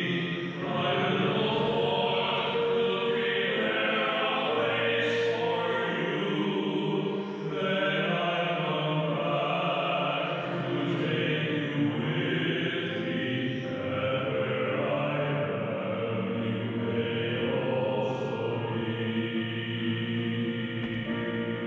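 A male cantor sings a liturgical song with keyboard-piano accompaniment, continuous and unbroken.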